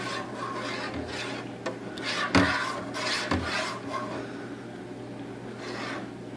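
Hand rubbing and handling noises on a pressure gauge and its brass fittings, soft scuffs with a sharp knock about two and a half seconds in and a lighter one about a second later.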